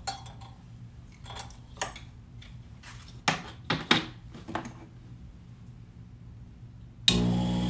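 A few light metallic clicks and clinks, then about seven seconds in the cue lathe's motor switches on suddenly and runs with a steady hum.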